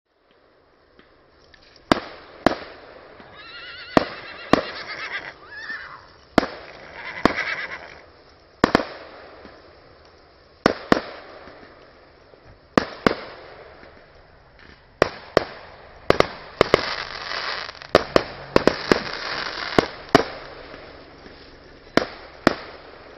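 Fireworks display: about two dozen sharp bangs at uneven intervals, some in quick pairs, with crackling between them. A high wavering whistle sounds about four to six seconds in.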